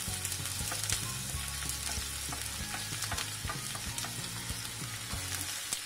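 Chopped onion sizzling as it goes into hot oil with frying garlic in a pan, a steady hiss broken by short scrapes and clicks of a wooden spatula pushing the onion off a steel plate and stirring.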